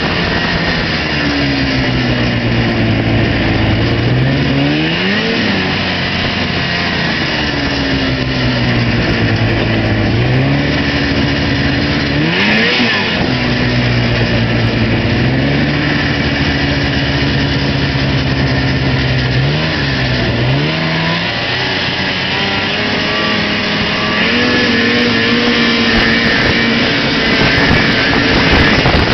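Arctic Cat Pantera snowmobile engine running while riding, its pitch rising sharply and easing back down three times, then holding higher near the end.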